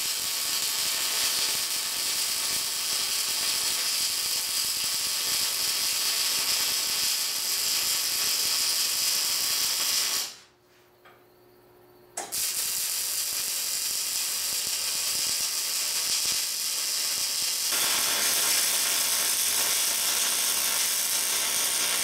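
Wire-feed (MIG) welding arc crackling steadily as a round steel boss is welded onto the end of a steel flat bar. The arc stops for about two seconds around the middle, then strikes up again and runs on.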